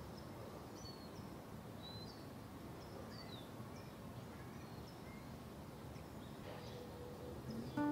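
Outdoor garden ambience: a steady low background hiss with faint, short bird chirps scattered throughout, several of them sliding downward in pitch.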